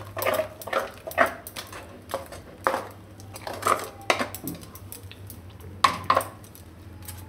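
A spatula scraping and stirring round a steel kadai, in irregular strokes, as a thick cashew and milk-powder mixture is cooked down until it dries into a dough.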